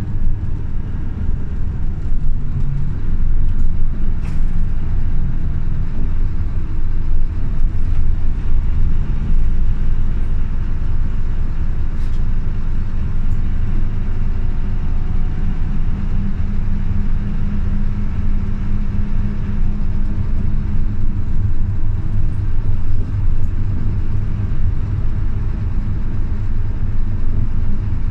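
Scania OmniLink CK270UB city bus heard from inside while under way: a steady low rumble of engine and road noise. A low hum stands out for several seconds past the middle.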